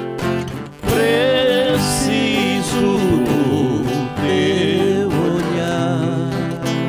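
Live sertanejo music: acoustic guitar strumming, with a wavering melody line rising over it from about a second in.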